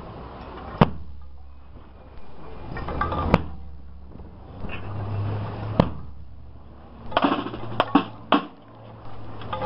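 Street ambience at a religious procession: a low steady hum with sharp, single knocks every two to three seconds, then a quicker cluster of knocks and noise near the end.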